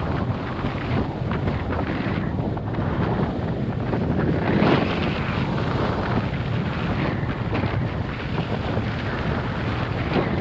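Strong headwind buffeting the microphone of a skier's action camera during a downhill run: a loud, unsteady rushing that swells and eases, with one stronger gust about halfway through.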